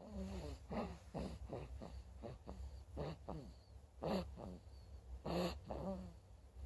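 Snoring in sleep: short squeaky, whistling breath sounds, each falling in pitch, come in quick succession. From about four seconds in, louder breathy snores arrive roughly every second and a half.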